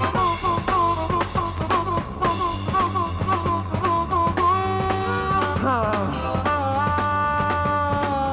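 Hard rock band playing live: a harmonica repeats a short bending riff, then plays long held notes, sliding down into them about halfway through, over steady drums and bass.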